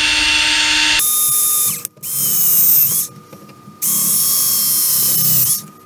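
Electric drill at low speed running in several short bursts, the bit cutting through a plastic mount and just touching the aluminum beneath to spot the holes. Each burst carries a steady whine and stops abruptly, with brief pauses between them.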